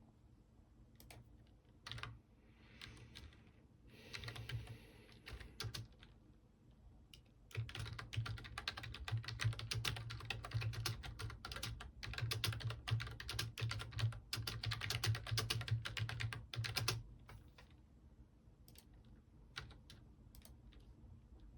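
Computer keyboard typing: a few scattered key clicks and two brief rustling noises, then a fast, continuous run of keystrokes lasting about ten seconds, easing back to occasional clicks near the end.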